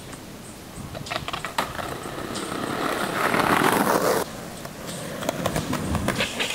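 Skateboard wheels rolling on pavement, the rumble swelling to a peak and then cutting off abruptly, followed by a run of sharp clicks and clacks from the board on the concrete footpath.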